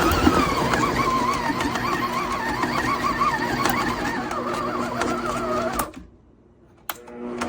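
Electric stand mixer motor running with a steady hum and a wavering high-pitched whine. It winds down and stops about six seconds in, a single click follows, and the motor starts again near the end.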